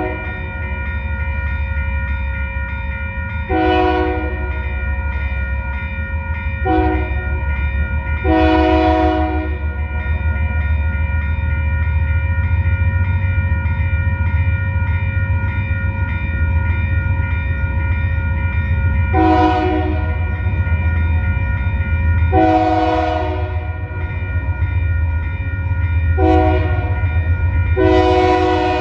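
Arizona Eastern diesel locomotives approaching, their engines running with a steady low rumble and a constant whine. The lead unit's air horn sounds the grade-crossing signal of long, long, short, long twice: once in the first ten seconds and again in the last ten.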